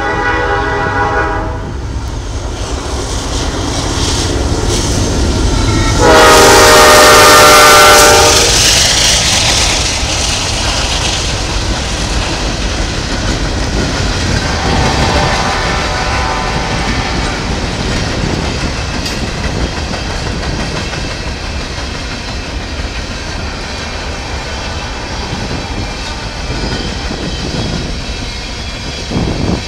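Freight locomotive air horn of NS 4071 leading a Norfolk Southern manifest train: a blast at the start, then a much louder long blast about six seconds in, and a fainter note around fifteen seconds in. After the horn, the train runs on with the steady rumble and clickety-clack of covered hopper cars rolling by.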